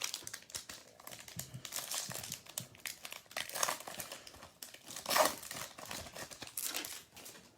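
Baseball card pack wrapper being torn open and crinkled by hand: a run of irregular crackling and rustling, with the loudest rip about five seconds in.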